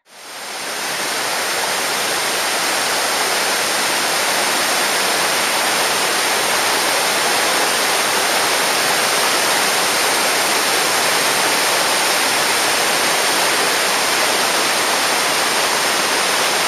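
Small river waterfall: white water pouring over rocks and jammed logs, making a steady, loud rush of falling water that fades in over the first second.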